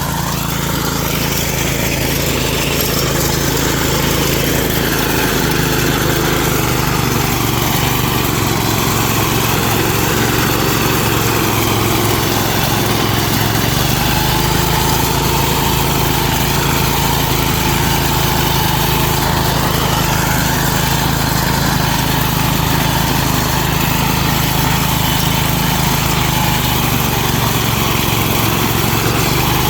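Small engine of a rice reaper running steadily. Its note shifts about halfway through, when a higher whine joins.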